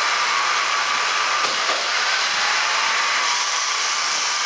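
K'nex roller coaster's small electric motor running: a steady whirring hiss with a faint humming tone.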